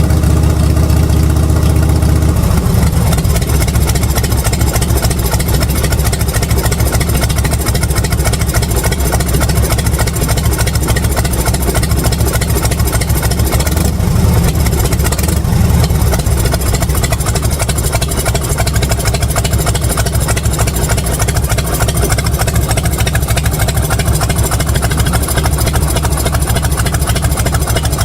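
1983 Harley-Davidson 1340cc Shovelhead V-twin engine running steadily at idle. Its note turns rougher about two seconds in and swells briefly about halfway through.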